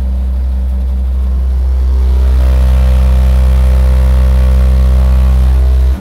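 A very loud, steady low bass tone from the eight Xion X8-series subwoofers in a Volkswagen Caribe, playing an SPL competition burst. It grows a little louder about two seconds in and cuts off suddenly at the end. The run meters 163.7 decibels, close to the event record.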